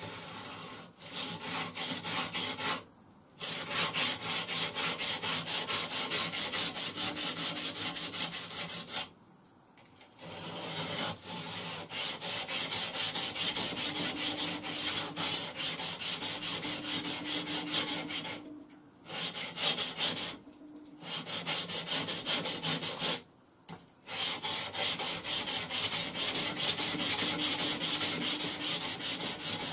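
Handmade puukko knife blade drawn in pulling strokes across an old worn abrasive grinding belt, sharpening it toward a zero scandi grind: a continuous rasping scrape in long runs, broken by a few brief pauses.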